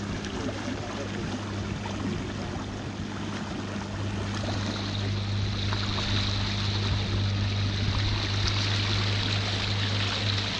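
Motorised wooden canoe under way: a steady low engine hum with water rushing along the hull. The water hiss grows brighter about halfway through.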